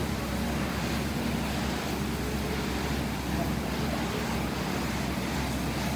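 Assault air bike's fan spinning steadily under continuous pedalling, an even rush of air.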